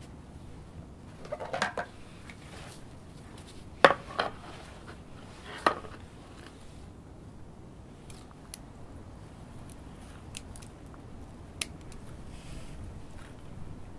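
Hands working an orchid's root mass, with a few knocks and rustles, the loudest about four seconds in, then a handful of single sharp snips of scissors cutting its roots in the second half.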